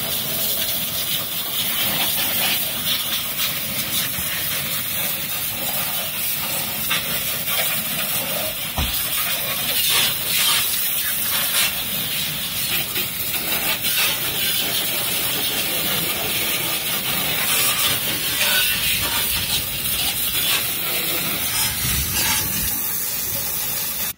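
Pressure-washer jet spraying water against a car's underbody, a steady loud hiss with uneven spatter as the water strikes the metal.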